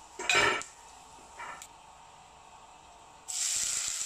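A short clatter, then about three seconds in chopped onions drop into hot oil in a stainless-steel kadai and start sizzling loudly and steadily. The oil already holds mustard seeds and dried red chillies for the tempering.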